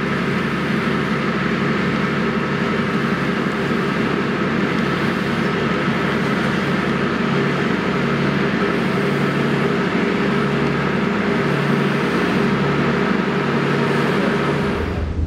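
Car ferry's engines and propellers running under way: a loud, steady drone with a slow, regular throb, over the rushing of the wake behind the stern.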